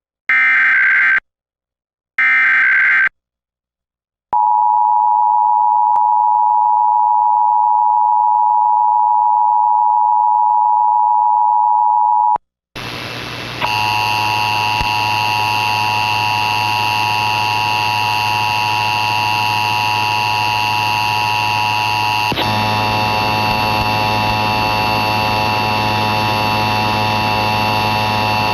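Emergency Alert System test tones: the last two bursts of the SAME digital header, each a screechy data burst about a second long, are followed by the two-tone attention signal held steady for about eight seconds. After a brief gap comes a steady buzzing hum with hiss that changes slightly partway through.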